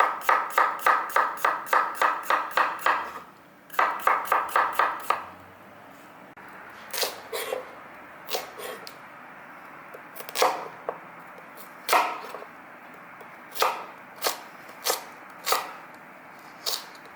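Knife chopping cucumber on a cutting board in quick, even strokes, about four a second, in two runs. Then come a faint steady hiss and scattered single knocks and taps on the board.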